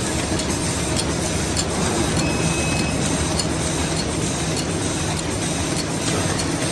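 Disposable cutlery packing machine running: a steady mechanical hum with a light click repeating a little under twice a second. A brief high tone sounds about two seconds in.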